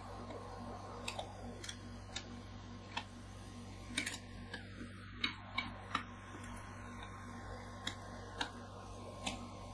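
Steel scrapers tapping and scraping on a frozen ice cream sheet on a cold plate as it is scored into strips: about a dozen irregular sharp clicks, over a steady low hum.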